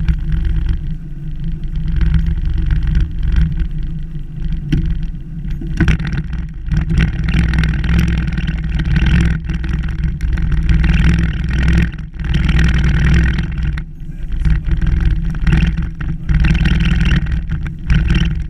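Boat motor running steadily with a low drone as an aluminium boat travels under way. From about six seconds in, a rushing noise swells and fades over it.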